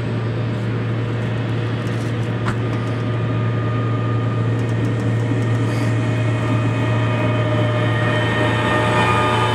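Boeing 787 jet engines running at taxi power as the airliner rolls past: a steady rumble with a low hum, growing slowly louder, and a high whine that strengthens near the end.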